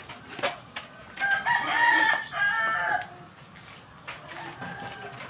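A rooster crowing once, a call of about two seconds starting about a second in, with a short break partway through. A brief knock comes just before it.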